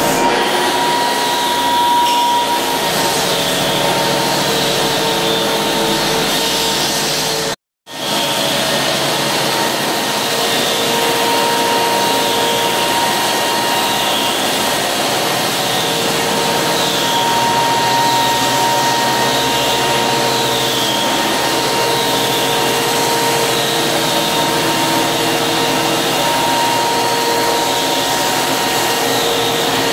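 Walk-behind drum floor sanding machine running steadily as it sands down an old wooden parquet floor, with a small handheld sander working the edges alongside it. The sound cuts out for a moment about eight seconds in.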